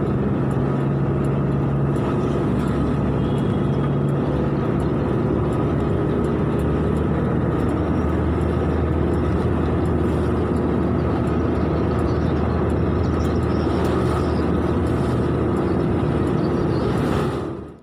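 Road vehicle engine running steadily, with tyre and road noise, while driving along a highway. It fades out abruptly at the very end.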